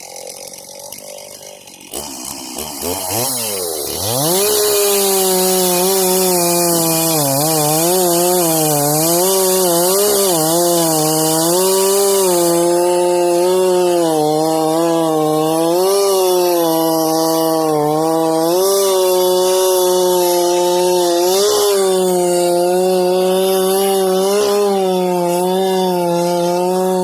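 Stihl MS 391 two-stroke chainsaw revving up sharply about two seconds in, then held at full throttle. Its pitch dips and recovers again and again as it loads up in a cut.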